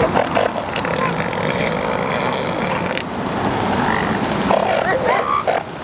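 Female northern elephant seal calling with her mouth open as a bull mounts her, the protest calls a cow gives during mating, over a steady rushing background.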